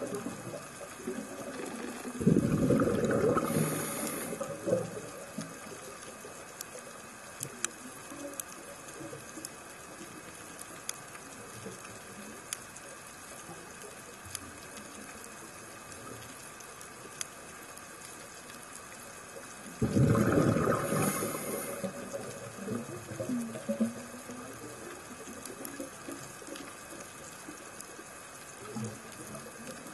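Underwater recording of a scuba diver's exhaled bubbles gurgling from the regulator in two loud bursts of about two seconds each, about two seconds in and again about twenty seconds in, over a steady underwater hiss with scattered sharp clicks.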